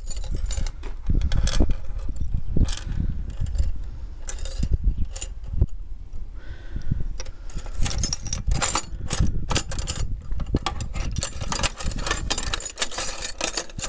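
Steel spanners clinking and rattling against each other and the sides of a tractor's metal toolbox as they are rummaged through by hand, with a keyring jangling. A steady low rumble runs underneath.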